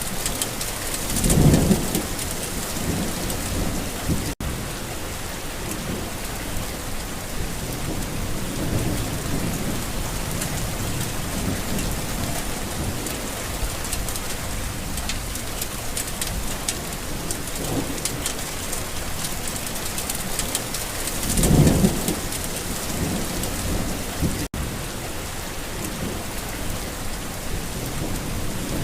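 Steady rain falling, with a rumble of thunder about a second in and another about twenty seconds in, the two loudest moments. The sound drops out for an instant twice.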